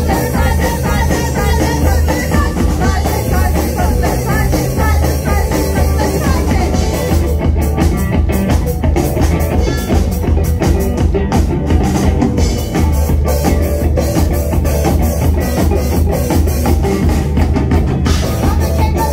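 Live rock band playing: electric guitar, bass guitar and drum kit, with vocals sung over them.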